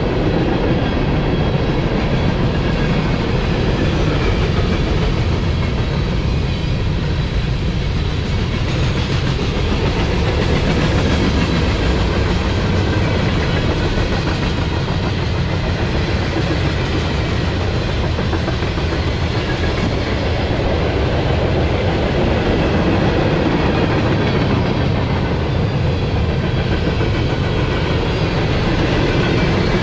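Freight cars of a mixed freight train (tank cars, refrigerated boxcars and covered hoppers) rolling past close by: the steady, loud rumble and rattle of steel wheels on rail.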